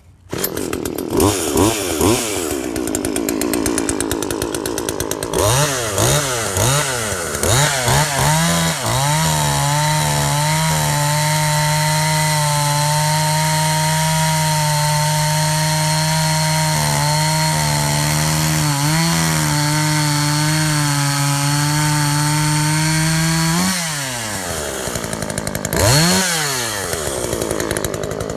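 Poulan 2055 42cc two-stroke chainsaw. It blips the throttle a few times, revs up, and then holds a high, nearly steady pitch for about thirteen seconds, as if cutting wood under load. Near the end it drops back toward idle, with one more rev.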